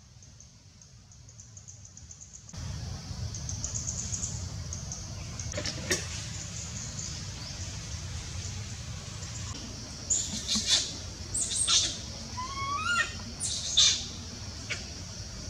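High-pitched animal calls: a run of sharp chirps and squeaks from about ten seconds in, a few sweeping up in pitch, over a steady high drone.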